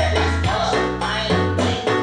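Music played through a pair of homemade wooden speaker cabinets driven by a PAM8403 class D mini amplifier, in a sound test of the finished amp; deep bass notes change about every half second.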